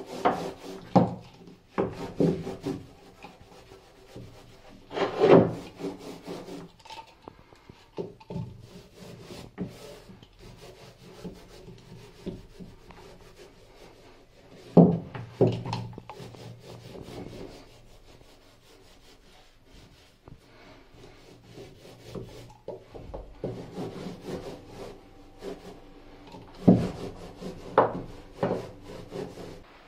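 A paintbrush rubbing varnish onto wooden cabin panelling, with repeated brush strokes and several sharp knocks of the brush or hand against the wood, the loudest about 5, 15 and 27 seconds in.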